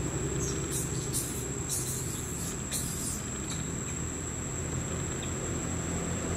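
Outdoor ambience: a steady low engine hum under a constant high insect whine, with a few short high insect buzzes in the first half.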